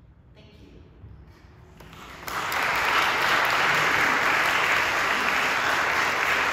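Congregation applauding, starting suddenly about two seconds in and continuing steadily.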